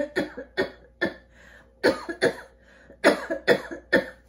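A woman coughing into a tissue: about a dozen short coughs in several quick fits. She has asthma and puts the coughing down to the dry room.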